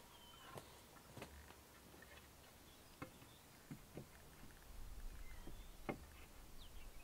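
Near silence with faint, scattered knocks and clicks, a few short high chirps, and a low rumble that comes in about two-thirds of the way through.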